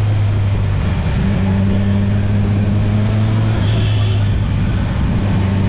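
Motorcycle engine running steadily at cruising speed with a constant low hum, over wind and road noise.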